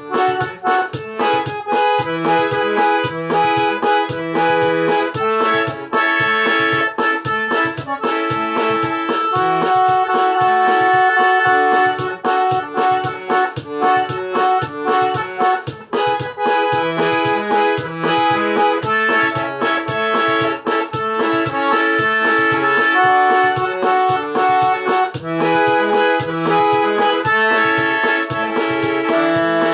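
Accordion playing a melody with chords over a steady, pulsing bass.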